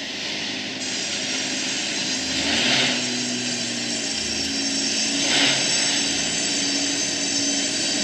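Engine of a small log-pushing boat (a log bronc) running steadily as it shoves a log across the mill pond, with the noise of its working surging twice.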